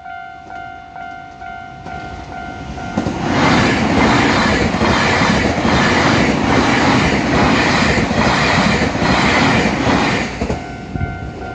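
Japanese level-crossing warning bell ringing with a two-tone ding at about two strokes a second, drowned out about three seconds in by a Nankai 12000-series limited express electric train passing through the crossing with a rhythmic clatter of wheels. As the train clears, the bell is heard again near the end.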